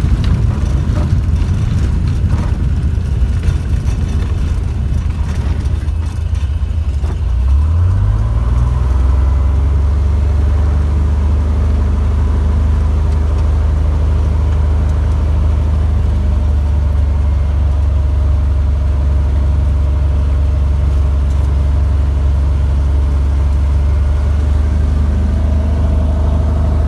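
Cessna 182D's six-cylinder Continental O-470 engine and propeller heard from inside the cockpit while rolling on a grass strip after landing. For the first several seconds the sound is rough with rattles and knocks from the uneven ground. About eight seconds in, the engine note rises as power is added for taxiing, then runs steadily at low power.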